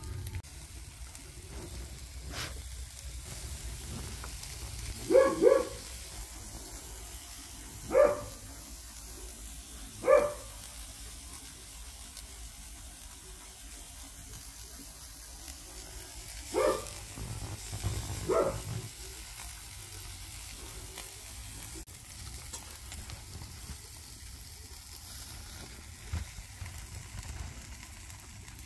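Food sizzling on a charcoal grill, a steady low hiss, broken by a dog barking now and then: a double bark, then four single barks a few seconds apart, which are the loudest sounds.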